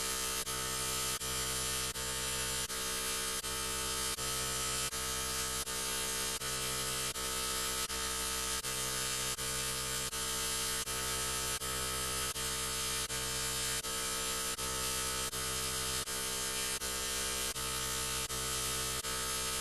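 Heavily processed, distorted electronic sound effect: a harsh steady buzzing drone of many stacked tones, restarting in a short loop a little under twice a second.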